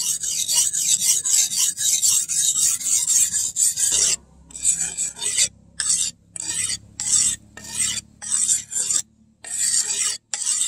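Steel knife blade, made from chainsaw bar steel, being honed on a wet sharpening stone. First a quick run of rapid scraping strokes for about four seconds, then slower separate strokes with short gaps between them.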